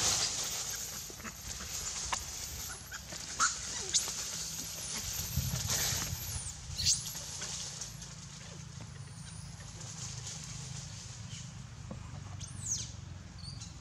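Rustling and scattered clicks in dry leaf litter, with a few quick high-pitched squeals from macaques that fall sharply in pitch, the clearest about seven seconds in and another near the end.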